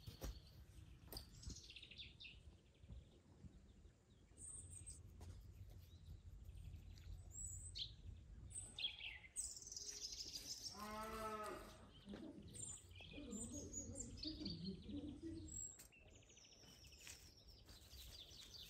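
Small birds chirping and tweeting now and then over a low steady rumble. About halfway through, an animal gives one wavering call lasting about a second.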